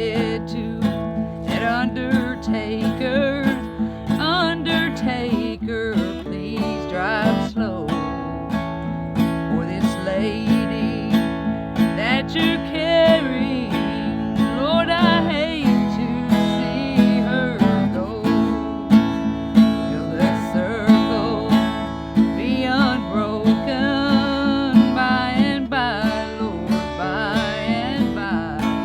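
Acoustic guitar strummed in a steady rhythm, with a woman singing a country gospel tune over it.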